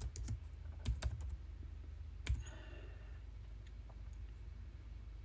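A few scattered computer keyboard keystrokes, irregularly spaced, over a steady low hum.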